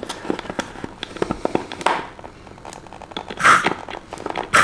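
Metered-dose inhaler puffed into a homemade plastic-bottle spacer held over a dog's muzzle: a short hiss of spray about three and a half seconds in and another at the end, over light crackling and clicking of the plastic bottle being handled.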